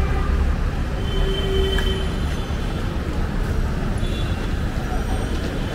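Steady street traffic rumble and hiss, with a brief high squeal about a second in.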